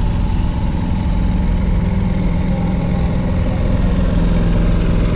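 An engine idling steadily: a loud, even low hum with a fixed pitch.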